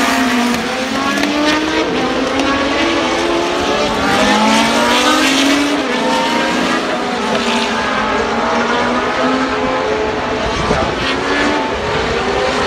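Engines of several historic Formula One race cars at speed. Their pitch keeps rising and falling as they accelerate and change gear, with more than one car heard at once.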